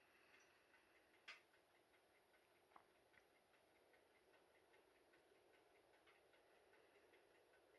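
Very faint sounds of a wood fire dying down in a stove-fireplace: a sharp crackle about a second in and a smaller one near three seconds, over a quick, even ticking.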